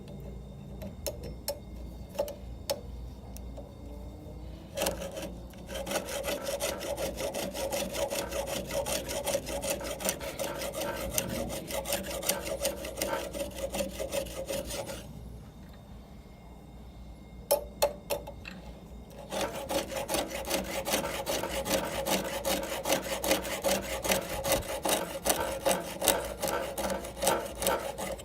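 Round file rasping over the cutters of a chainsaw chain being hand-sharpened, in quick repeated strokes. There are two long runs of filing, with a pause of a few seconds and a couple of clicks between them.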